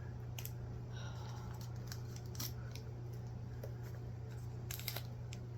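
Hands handling figure packaging: a few sharp clicks and faint rustling of plastic, over a steady low hum.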